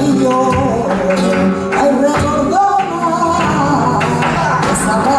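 Live flamenco music in the alegrías style: a singer's wavering voice over flamenco guitar, with sharp percussive hits throughout.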